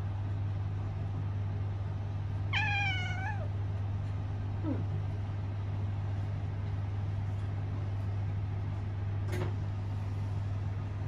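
A domestic cat meowing once, a single call just under a second long, about two and a half seconds in. A steady low hum runs underneath.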